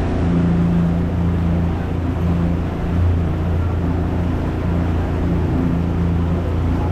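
Small passenger ferry's engine running steadily under way: a constant low drone with a steady hum.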